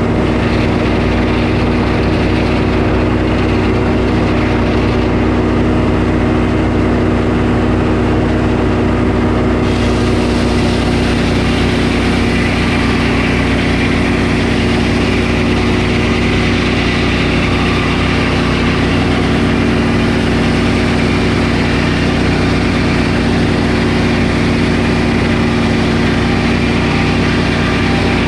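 Sawmill running steadily while milling a pine log, its engine humming throughout; from about ten seconds in a brighter, hissier sound is added over the engine.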